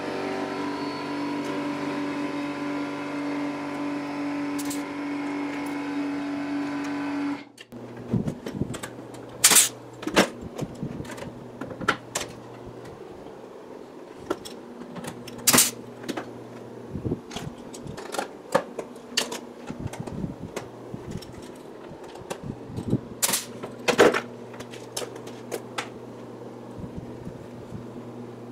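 A steady machine hum that cuts off abruptly after about seven seconds, then a pneumatic pop-rivet gun setting rivets through rubber baffle seals on aluminium engine baffles: a handful of sharp snaps spread out, among small clicks of handling.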